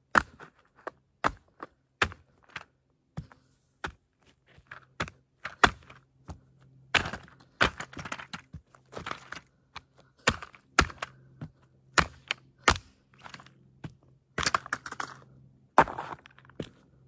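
Plastic body of a toy Grave Digger monster truck cracking and snapping as it is crushed: an irregular string of sharp cracks and knocks, one or two a second, coming in quicker clusters in places.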